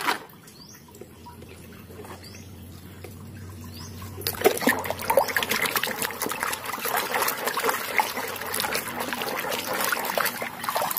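Muddy water sloshing and splashing in a plastic basin as a hand swishes and scrubs toys under the surface. It starts about four seconds in, after a quieter stretch, and goes on as a dense, crackly splashing.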